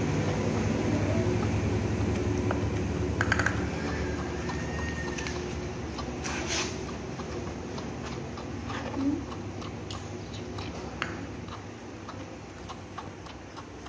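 Baby macaque sucking milk from a plastic feeding bottle: small, irregular clicks and smacks at the teat. A low rumble underneath fades away.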